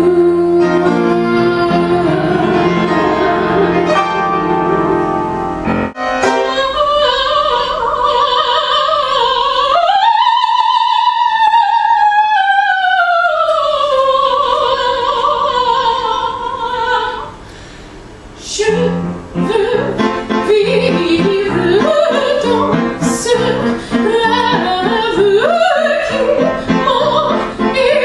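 A woman singing with piano accompaniment, in short snippets joined by abrupt cuts. In the middle she sings in an operatic soprano style, holding one long high note with vibrato that swells up and falls away.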